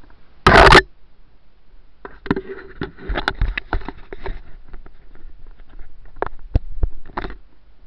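Footsteps and rustling as a person walks from dry undergrowth onto a grass path, with knocks of the camera being handled. A loud, short burst of noise about half a second in.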